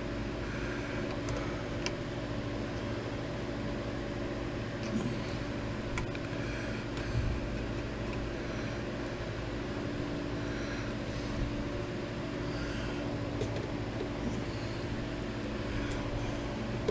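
A steady machine hum throughout, with a few faint, light clicks and taps from handling small pins and thin wooden planks on a model boat hull.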